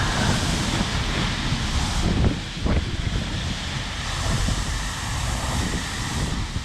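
Wind buffeting the microphone over a steady rushing hiss of water, with a couple of brief knocks around the middle.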